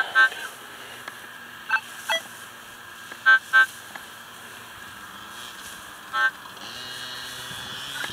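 Minelab CTX 3030 metal detector giving short target beeps as it is swept over the ground: a pair at the start, two single beeps, a close pair in the middle and one more later. These are its signals of metal beneath the coil. Near the end a small gas engine starts revving up in the background.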